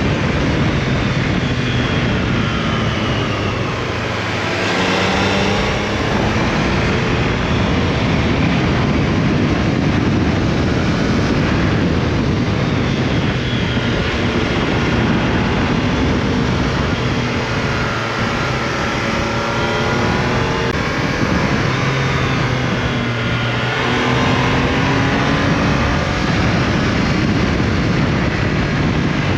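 Triumph Tiger Sport 660's three-cylinder engine pulling through a run of bends, its pitch rising and falling several times as the rider accelerates and rolls off, under a steady rush of wind noise on the onboard camera.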